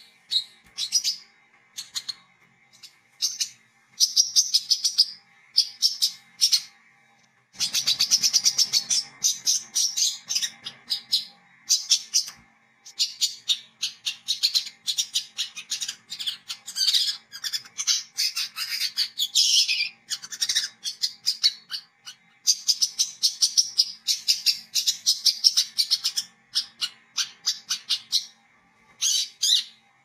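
Caged brown-throated sunbird (wiceh, kolibri kelapa) chattering: fast, high, scratchy twittering in long runs broken by short pauses.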